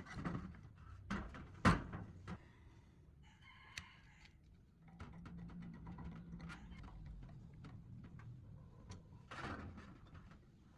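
Scattered knocks and clicks of workshop hand work on parts, with a short bird call about three seconds in and a low steady hum starting about halfway through.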